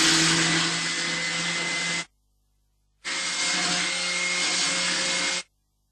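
Handheld electric power tool running steadily with a whine, smoothing the freshly cut edge of a plastic 20-litre container. It cuts off abruptly about two seconds in, runs again from about a second later, and stops shortly before the end.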